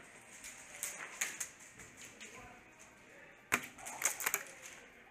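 A scattering of sharp clicks and knocks against a plywood-walled indoor course, the loudest a single sharp knock about three and a half seconds in, followed by a quick cluster of clicks.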